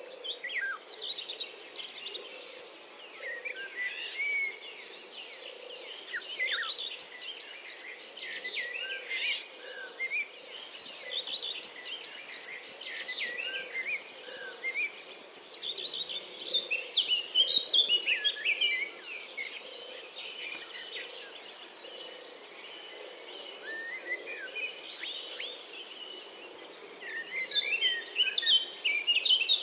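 European robin singing: bursts of quick, thin, varied warbling phrases with short pauses between them, loudest in the middle and near the end. A steady thin high whine runs underneath.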